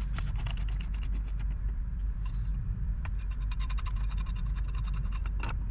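Steel pipe wrenches clicking and scraping on the fittings of a gas pipe as they grip and turn the joint tight, in runs of quick metallic ticks that ring briefly, thickest from about three seconds in. A steady low rumble runs underneath.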